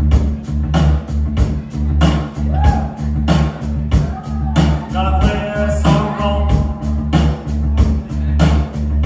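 Live heavy metal band playing loud: distorted electric guitars and bass over a steady, fast drum beat, with a held melodic line rising above the band around five seconds in.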